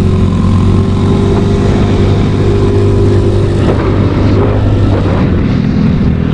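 Yamaha Mio Sporty scooter's single-cylinder engine running steadily while riding, with wind rushing over the microphone. The steady engine note drops away about five seconds in.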